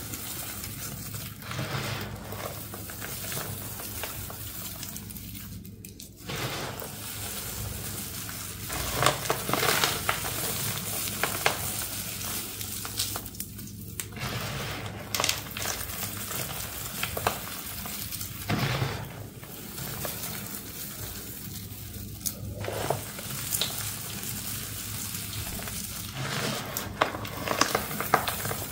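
Hands squeezing and sifting crumbled, gritty powder mixed with foil confetti and glitter, making a dense crunching and hissing with small crackles. It swells as handfuls are crushed and eases as they fall back, every few seconds.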